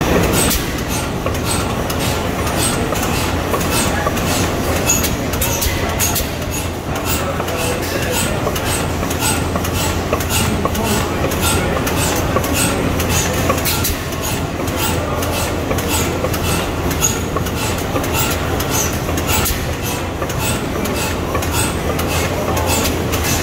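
Antique Deutz twin-cylinder slide-valve side-shaft gas engine running steadily, with an even clicking rhythm of about three to four clicks a second over a low steady hum.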